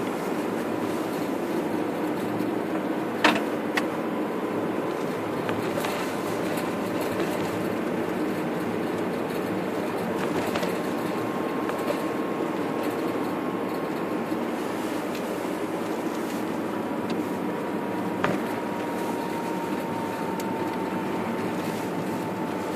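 Car driving on a snow-packed road: steady road and engine noise with a faint steady whine, and a few sharp knocks, the loudest about three seconds in.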